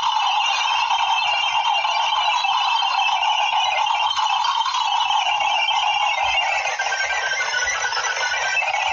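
Continuous dense clicking, a steady rattling texture of many fast small clicks with no pauses. Its lower edge drops a little near the end.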